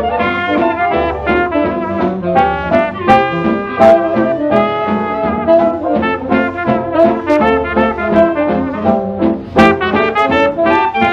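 Jazz band playing an instrumental passage with the brass section to the fore, no vocal, in a chain of held chords and short accented notes.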